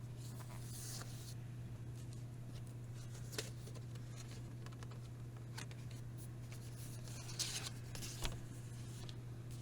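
Handling noises from unboxing album packaging: a few short rustles and light clicks and knocks over a steady low hum.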